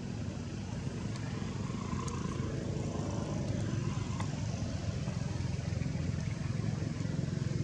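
A motor vehicle engine running, a low steady rumble that grows gradually louder toward the end.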